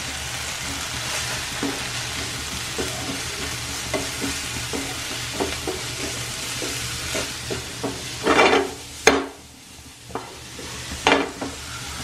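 Chopped onion, tomato and sweet corn sizzling in oil in a nonstick frying pan while a wooden spatula stirs them, its edge ticking and scraping on the pan. The spice masala has just gone in. There are a few louder scrapes near the end.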